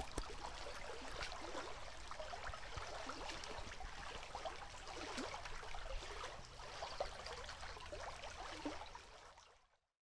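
Shallow river water flowing, a faint trickling and gurgling with small splashes, fading out near the end.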